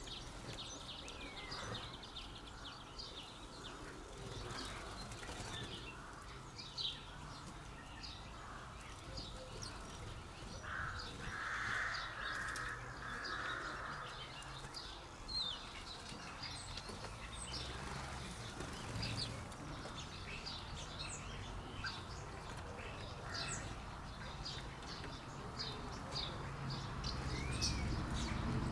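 Garden birds calling: many short, high chirps scattered throughout, with a louder, lower run of calls about eleven to fourteen seconds in.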